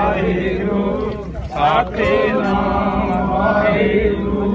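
A group of voices chanting together, many overlapping and wavering over a steady low hum. A brief rush of noise cuts across them about one and a half seconds in.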